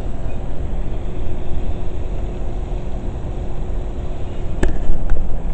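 Uneven, rumbling wind noise buffeting a small camera microphone, with a couple of sharp clicks near the end.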